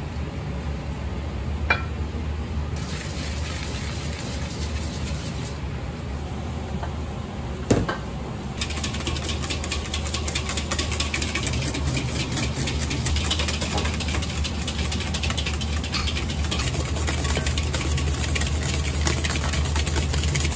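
Wire whisk beating meringue in a large stainless steel bowl, a fast continuous rattling scrape that starts about a third of the way in, over a steady low kitchen hum. Two sharp knocks come before the whisking.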